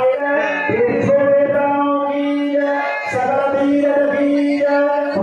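A male voice singing a devotional chant with musical accompaniment, in long held notes.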